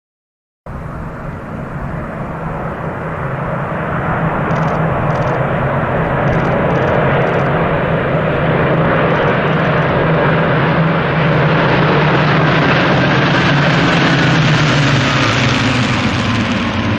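A formation of WW2-era propeller aircraft flying over, their engines making a continuous deep drone that grows louder over the first several seconds and then holds steady. Near the end a faint whine slides lower.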